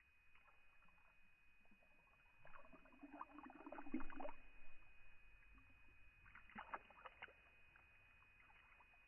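Orange juice streaming into an open mouth and splashing over lips and beard: faint wet gurgling and spluttering in two bouts, the first about two and a half seconds in and the second around seven seconds.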